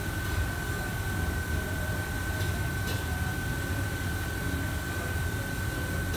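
Steady drone of commercial kitchen ventilation and equipment, a low rumble with a constant high whine over it. Two faint clicks of utensils come near the middle.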